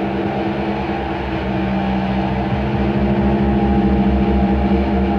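Experimental electronic drone music: a dense, steady hum of layered held tones over a rapid low throb, which grows stronger and slightly louder about halfway through.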